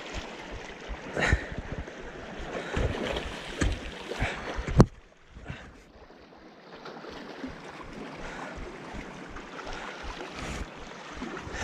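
Wind on the microphone over sea water, with knocks and rubbing from handling a baitcasting rod and reel. A single sharp, loud snap comes about five seconds in, after which it is quieter.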